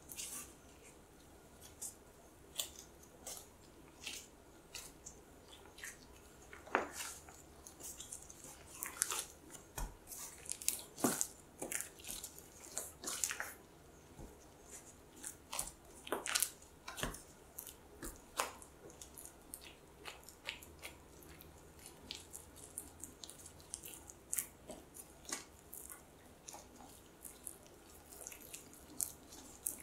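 Bread dough enriched with cream being kneaded by hand in thin plastic gloves on a wooden board, with softened unsalted butter being worked into it: many short, irregular sticky clicks and taps as the dough is pressed, folded and pulled off the board, busiest through the middle.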